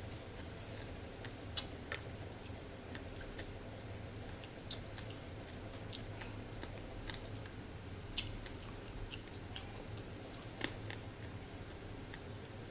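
A person eating close to the microphone: quiet chewing with scattered mouth clicks and a few sharper snaps, over a steady low hum.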